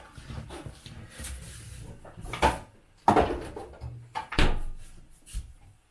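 Kitchen handling sounds: a plastic soda bottle being capped and put away, with a few sharp knocks and bumps like a cupboard or fridge door being opened and shut.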